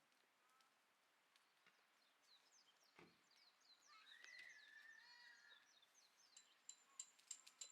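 Faint birdsong from several birds: scattered short chirps, a longer whistled note about four seconds in, and a quick run of sharp high chirps near the end.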